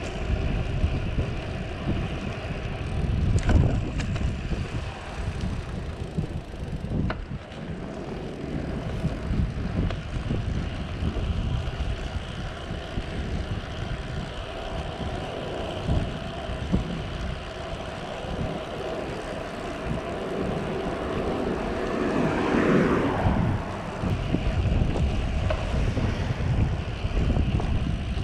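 Wind buffeting the camera microphone on a moving road bike, with road noise from the tyres. There is a louder swell a few seconds before the end.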